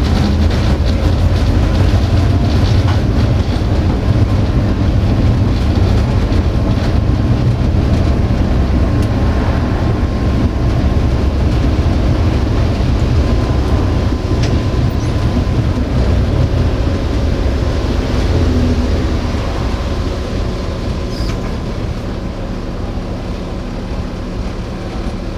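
Tatra T4D tram heard from inside the driver's cab as it runs along the street track: a steady rolling rumble of wheels and running gear with a thin steady whine above it, getting a little quieter near the end.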